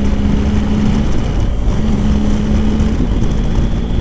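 BMW R1250 GSA's boxer-twin engine running, a steady low rumble with an even drone that drops out briefly and comes back.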